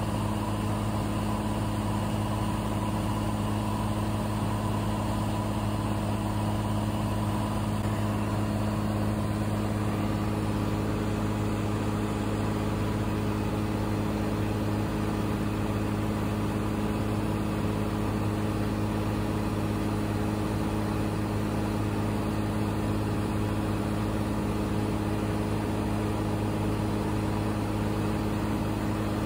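Cessna 182's piston engine and propeller droning at a steady pitch, heard from inside the cabin.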